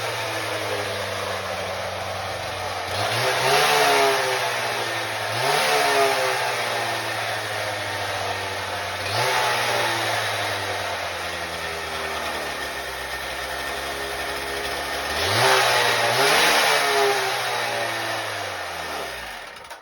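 Partner K750 two-stroke concrete saw engine running at a steady idle and revved briefly four times, then winding down and stopping near the end. It is holding its idle on a newly fitted carburettor, where before it would start but not stay running.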